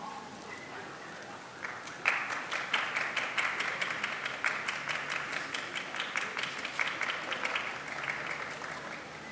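Crowd applauding, starting suddenly about two seconds in and dying away near the end.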